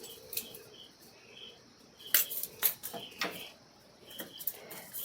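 A few light clicks and taps from handling wire and a switch board while it is being wired, with small birds chirping faintly in the background.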